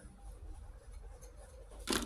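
Small miniature plastic toy kitchen pieces handled quietly, then a burst of clattering plastic clicks begins near the end.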